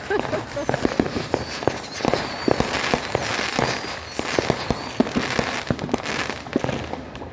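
Fireworks going off: a steady run of sharp bangs and pops, thickening into a dense crackle through the middle.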